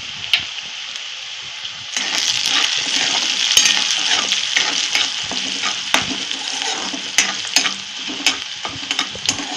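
Chopped onion, garlic and chillies sizzling in hot oil in a wok, stirred with a steel spatula that scrapes and clicks against the pan. The sizzle grows louder about two seconds in, with sharp spatula ticks through the second half.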